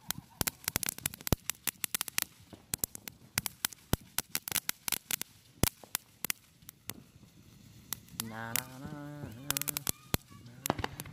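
Ground fountain firework spraying sparks, with irregular sharp crackles and pops several times a second. About eight seconds in, a low, honk-like voice sound lasts about a second and a half.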